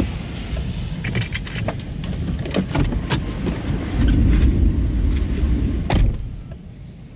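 A car driving past on a wet road, with steady wind rumble on the microphone and a run of sharp clicks and taps in the first few seconds. The rumble swells loudest about four seconds in and drops away near the end.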